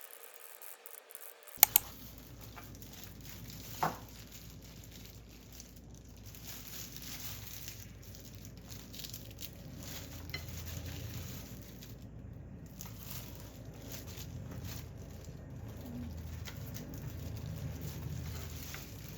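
Rapid, irregular typing on a mechanical keyboard, many small key clicks over a low steady hum, with two sharper clicks about a second and a half in.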